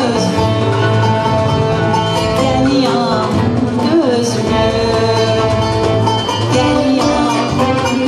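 Woman soloist singing a Turkish art music (Türk sanat müziği) song in makam Hüseyni, her voice gliding through ornamented phrases over a choir ensemble of bowed violin and plucked strings.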